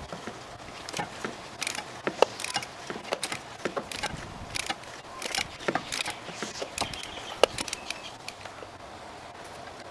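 Irregular metallic clicks and clinks of a socket wrench and hex socket being worked on a manual gearbox's drain plug. The sharpest clicks come about two seconds in and again about seven seconds in.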